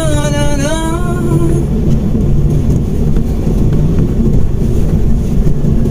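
Mitsubishi Mirage car heard from inside the cabin while driving, with a steady low rumble of engine and road noise. A held, slightly wavering tone runs over it and stops about a second and a half in.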